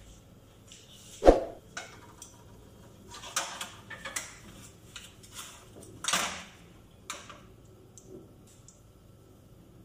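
Kitchen handling noises while preparing to fry: a loud thump about a second in, then scattered clicks, knocks and short clattering sounds of cookware and utensils.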